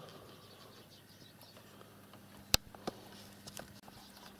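Faint room noise over a low steady hum, broken by one sharp click about two and a half seconds in and a softer click just after, then a few faint ticks.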